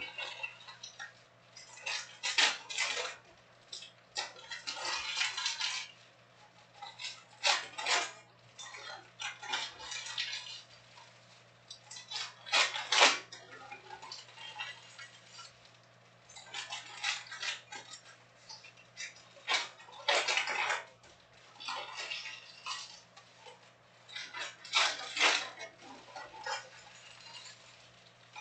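Trading cards and foil card packs being handled on a table: irregular rustling and crinkling, with cards slid and tapped together, in short bursts every second or two.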